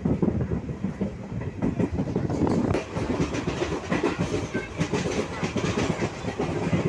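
A passenger train coach running on the rails, heard from inside the carriage: a steady rumble of wheels on track with dense, irregular rattling and clatter.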